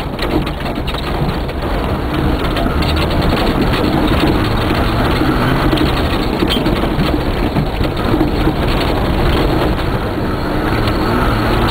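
Rally 4x4's engine running hard, heard from inside the cabin, with a steady drone under dense rattling and many short knocks as the vehicle bounces fast over a rough dirt track.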